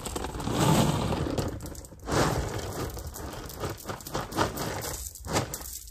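Gravel pouring out of a plastic bucket onto a dirt driveway, a rattling rush of stones in two spells: the second starts about two seconds in and thins out near the end.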